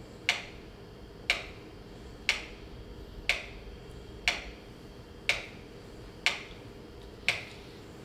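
Sharp clicks at an exactly even pace of one per second, eight in a row, each dying away quickly.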